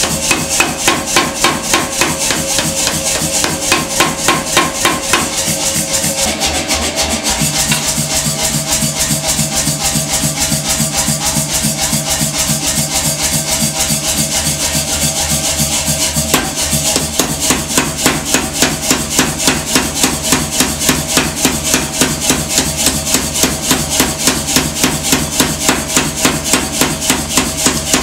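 Power hammer pounding a red-hot steel bar in quick, even blows, about three a second, at first straight on the bar and later through a handled top-and-bottom tool. The blows are lighter in the middle stretch.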